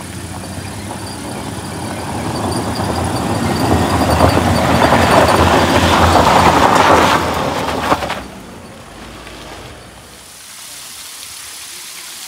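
Heavy truck engine running hard and growing louder over several seconds, then cutting back suddenly about eight seconds in, with a click, to a much quieter steady sound.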